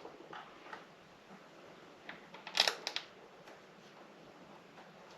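Light clicks and knocks of a monitor arm's mounting plate and screws being handled against the monitor's plastic housing, with a quick cluster of sharp clicks about two and a half seconds in.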